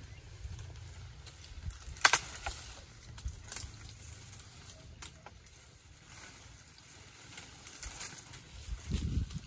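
A man climbing a tree: a few sharp snaps and knocks among branches and leaves, the loudest about two seconds in, then a low rumble near the end.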